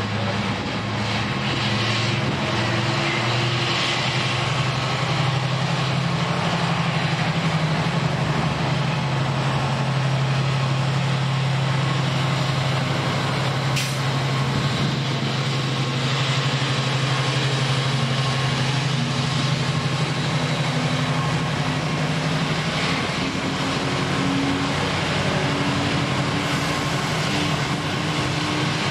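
Freightliner Class 70 diesel locomotive, with its GE PowerHaul V16 engine, running with a steady low drone as it passes close by hauling a container freight train, then the container wagons rolling past. A higher tone rises in the second half.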